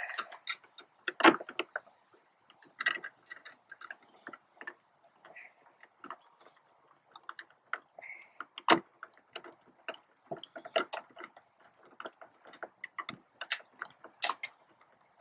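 Irregular small clicks and taps of screws being started by hand into the plastic box and kayak, with a couple of sharper knocks about a second in and near the middle.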